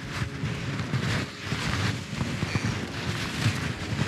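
Shovel digging and scraping into packed snow, in irregular strokes, over a low rumble.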